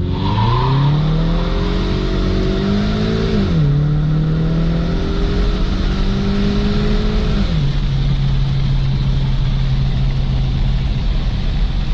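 2017 Ford Mustang EcoBoost's tuned 2.3-litre turbocharged four-cylinder accelerating hard from a standstill. The revs climb and drop sharply at two upshifts, about three and a half and seven and a half seconds in, then hold steady. The launch had no traction, by the driver's account.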